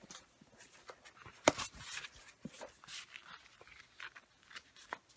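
Paper and plastic handling: irregular rustles and light clicks as a CD album's lyrics booklet and packaging are leafed through and moved about.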